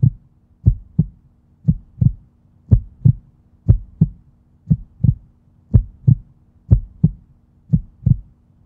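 Heartbeat sound effect: paired lub-dub thumps, about one pair a second, over a faint steady hum.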